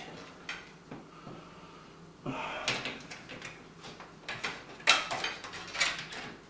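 Irregular clicks, knocks and a short scrape as cables and parts are handled inside a PC case; the sharpest clicks come about five and six seconds in.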